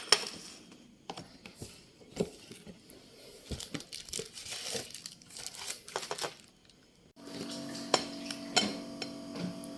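Light clicks, clinks and rustling of small objects being handled. About seven seconds in, the sound changes abruptly to a steady hum with a few sharp knocks over it.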